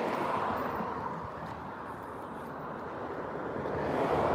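Steady outdoor background noise, a low rushing haze that swells a little near the start and again near the end.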